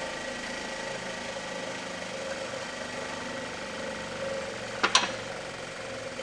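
A steady machine hum, with two sharp clicks close together about five seconds in.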